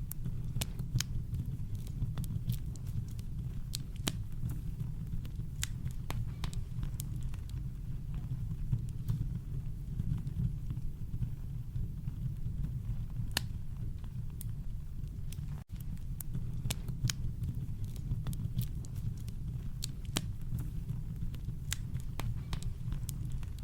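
Campfire crackling: irregular sharp pops and snaps from burning wood over a steady, deep brown-noise rumble. The sound drops out for an instant about two-thirds of the way through.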